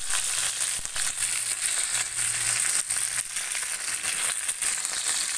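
Garlic, ginger, green chillies and curry leaves sizzling in hot sesame oil in a frying pan: a steady sizzle with many small crackles.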